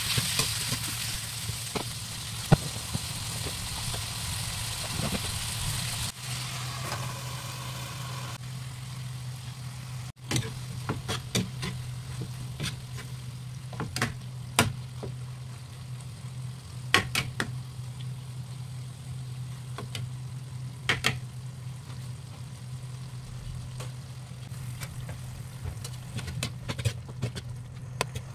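Chicken giblets sizzling in a nonstick frying pan, the sizzle strongest in the first few seconds and then easing as juices gather. From about ten seconds in, a spatula clicks and scrapes against the pan as the meat is stirred, over a steady low hum.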